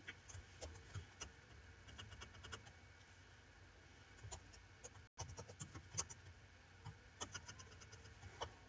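Faint clicks of a computer keyboard and mouse, in short scattered runs of taps.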